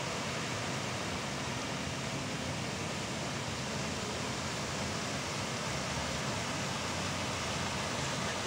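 Many fountain jets spraying and splashing back into the lake, a steady rush of water.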